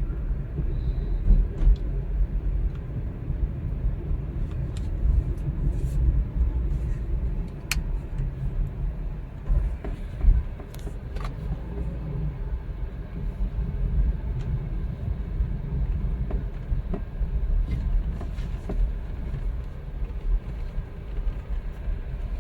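Steady low rumble of a moving car, with a few faint clicks.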